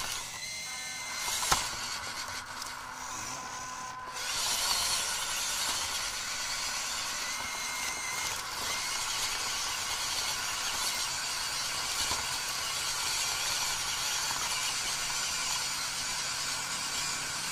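Small electric RC car's motor and gearbox whining steadily while it drives, heard from a camera mounted on the car. The whine gets louder about four seconds in, and there is a single sharp click a little before that.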